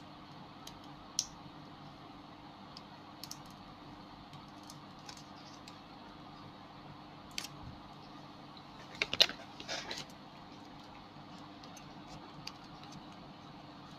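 Scattered small clicks and taps of hands and tools working on a laptop LCD panel being taken apart, with a short cluster of sharper clicks about nine seconds in, over a faint steady hum.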